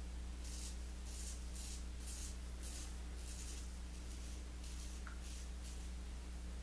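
Short, rasping strokes of an Edward Barnes & Sons 6/8 near-wedge straight razor scraping stubble, about a dozen in quick succession that thin out toward the end, over a steady low electrical hum.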